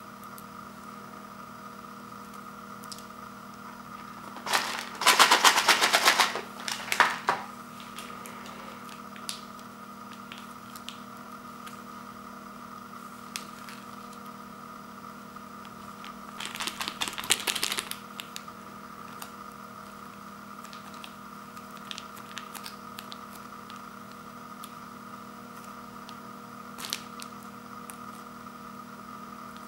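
Small plastic condiment packets crinkling and rustling as they are handled, in two loud crackly bursts, the first a few seconds in and the second about halfway through, with a few scattered light ticks between.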